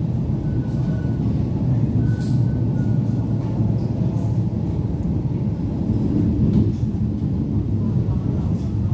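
Helsinki Metro train running along the track, heard from inside the carriage as a steady rumble of wheels on rails.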